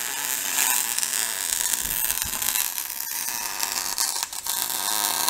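MIG welding arc on a steel truck frame: the wire-feed welder's arc crackling and sizzling steadily while laying a bead, with a brief break about three seconds in.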